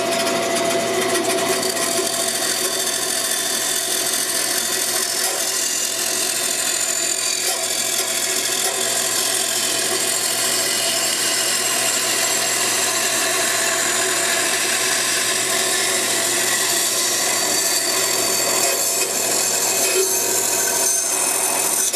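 Bandsaw running and cutting a gentle curve through a 2x4, a steady even noise, with the shop dust collector running along with it.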